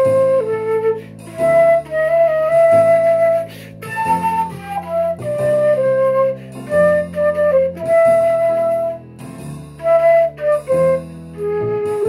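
Concert flute playing a melody of held notes and short falling runs, over a lower sustained accompaniment.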